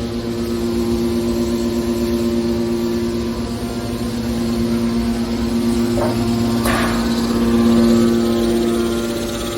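Hydraulic metal baler's power unit running with a steady hum, with two brief sharper noises about six and seven seconds in.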